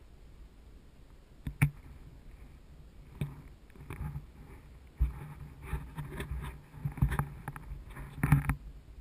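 Irregular knocks and crunches of broken pack ice, a few single ones at first, then a busy cluster in the second half with the loudest near the end.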